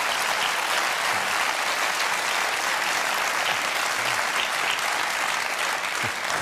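Studio audience applauding steadily, thinning slightly near the end.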